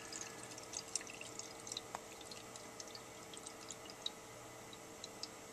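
Faint trickling and gurgling of water inside the APEC RO-45 reverse osmosis pre-filter housings as they refill after a filter change, with small drip-like ticks that thin out toward the end. It sounds like a leak but is the filters filling up, which the owner hopes it is. A faint steady hum sits underneath.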